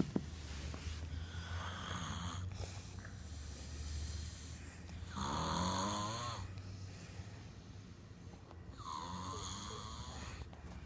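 Snoring: three long snores about three to four seconds apart, the middle one the loudest, over a steady low hum.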